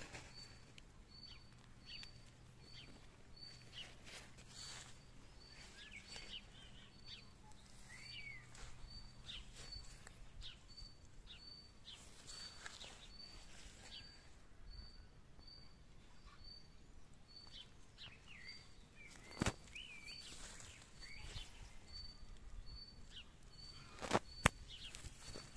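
Birds chirping and calling, with short rising and falling notes. Under them, one short high note repeats evenly, a little more than once a second. Near the end there are a few sharp knocks.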